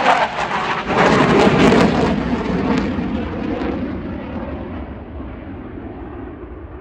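Saab 35 Draken jet fighter's turbojet passing low overhead: a loud jet roar that peaks about one to two seconds in, then fades steadily as the aircraft moves away.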